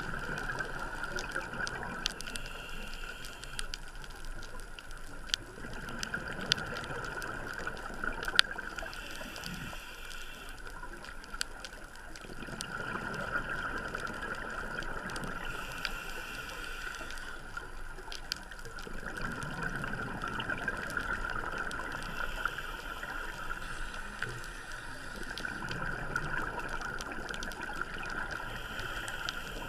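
Scuba diver breathing through a regulator underwater: a short hiss on each inhale and a bubbling rush on each exhale, in a slow cycle about every six to seven seconds, over a steady high hum, with scattered sharp clicks.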